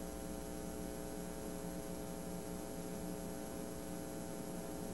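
Steady electrical hum with a faint hiss: background noise of the recording, with no other sound.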